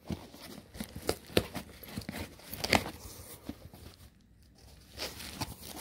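Cardboard shipping box being torn open by hand: short tearing and crinkling sounds with a few sharp cracks, and a pause about four seconds in.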